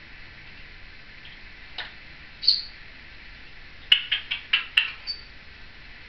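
Timneh African grey parrot making short, high chirps and clicks: a single chirp partway through, then a quick run of about six clicking chirps, ending in a brief thin whistle.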